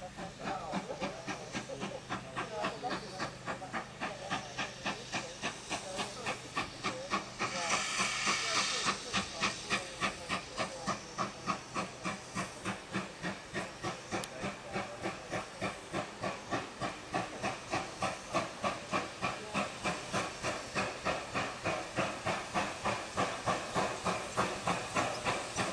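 GWR Manor class 4-6-0 steam locomotive No. 7820 chuffing with regular exhaust beats over a steady hiss of steam as it approaches with its coaches. A louder burst of steam hiss comes about eight seconds in.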